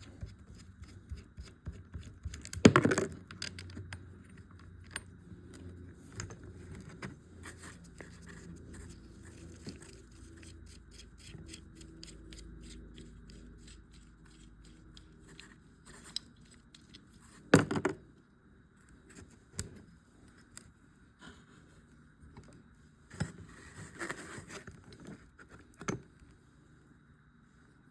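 Metal hand tools and pump parts clinking and scraping on a workbench while bolts are loosened on a garden tractor's hydraulic pump. Many small ticks and clicks, with a sharp metal knock a few seconds in, another a little past halfway, and a few more knocks near the end.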